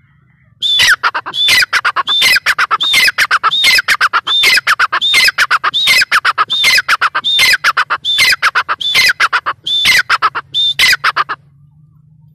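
Grey francolin calling: a loud series of about fifteen harsh notes, each starting high and sliding down, repeated about every two-thirds of a second with rapid clicking between them. The calling starts just under a second in and stops about a second before the end.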